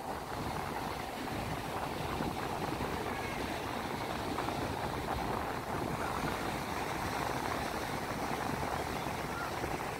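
Steady rush of ocean surf washing onto a sandy beach, an even noise with a flickering low rumble.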